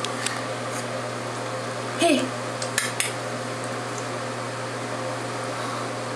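A baby gives a short babbling vocal sound about two seconds in, followed by two sharp clicks or slaps close together just under a second later, over a steady low hum.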